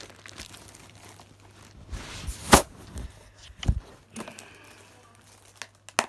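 Product packaging being handled and opened by hand: crinkling and rustling with scattered clicks and a few sharp knocks, the loudest about two and a half seconds in.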